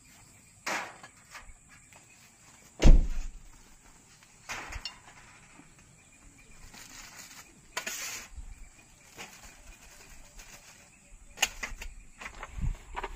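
Scattered knocks, clicks and rustles, with one loud low thump about three seconds in and a cluster of small knocks near the end, over a faint steady high hum.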